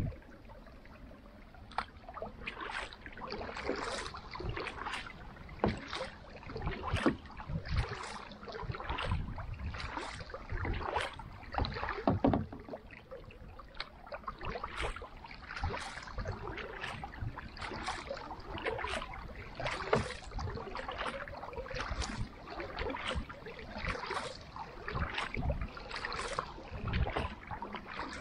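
Carbon kayak paddle stroking through lake water in a steady rhythm of about one stroke a second, each stroke a splash and swish with water running off the blade. The strokes begin about two seconds in.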